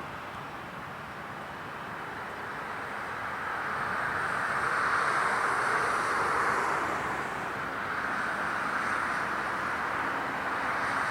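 Turbofan engines of a Bombardier Challenger 350 business jet: a steady jet rush that swells about halfway through, then eases slightly and holds.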